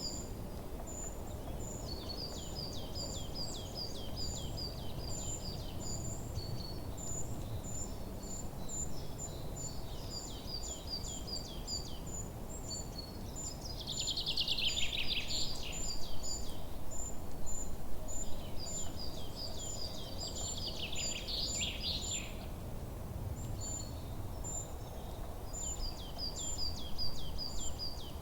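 Wild birds singing: high, rapid trills of short repeated notes throughout, with two louder, buzzier phrases about halfway through and again about three-quarters through, over a steady low background noise.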